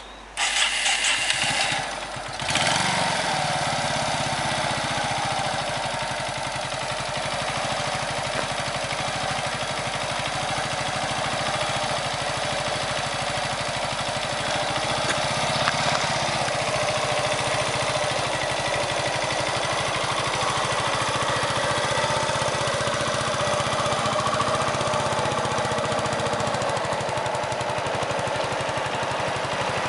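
1994 Yamaha SR125's single-cylinder four-stroke engine catching in the first couple of seconds, then idling steadily.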